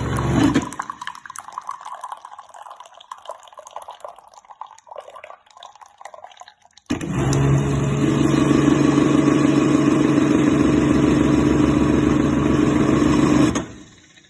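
Espressions automatic juicing machine: its motor stops about half a second in, followed by several seconds of faint irregular clicks and drips. Near the middle the motor starts abruptly, runs steadily with a low, even hum, and cuts off shortly before the end.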